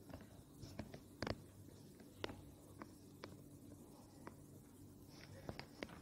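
Faint, scattered taps and strokes of a marker pen writing on a whiteboard.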